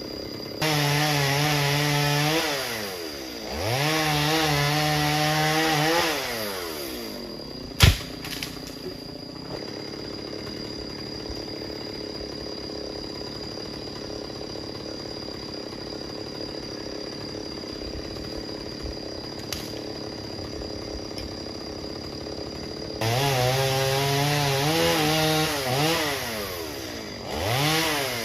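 Two-stroke chainsaw revved to full throttle twice, dropping back to idle between, then a single sharp knock and a long stretch of idling before it revs up twice more near the end.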